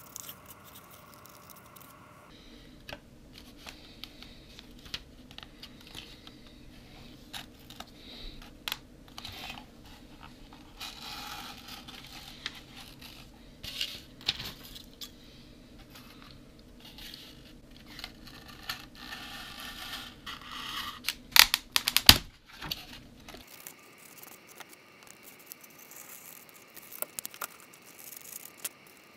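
Craft-knife blade cutting and scraping polystyrene foam: a long series of short scratchy strokes and small crunches, with a burst of louder strokes a little past two-thirds of the way through.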